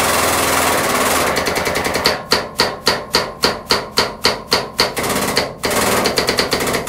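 Hydraulic press pump running steadily, then cycling in rapid sharp strokes, about four a second, with a short steady run between. This is the press ram being loaded to the set normal pressure on the test specimen.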